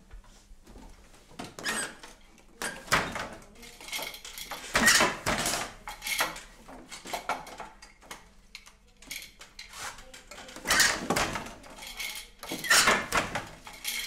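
Old loom being worked: irregular bursts of knocking and clattering, with a quieter lull about two-thirds of the way through.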